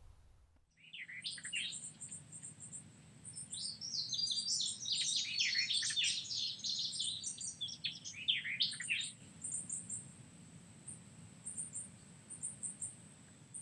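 Songbirds singing and chirping in quick warbling phrases, busiest from about four to nine seconds in, over a thin high trill that runs throughout.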